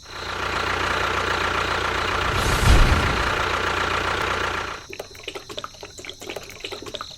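A small motor running steadily with a dense rattling noise and a low thump about two and a half seconds in. It stops about five seconds in, and a run of irregular clicks and rattles follows.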